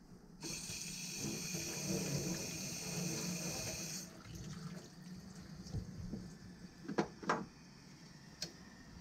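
Water running from a tap for about three and a half seconds, starting shortly after the beginning and stopping suddenly, then two short sharp knocks a fraction of a second apart later on.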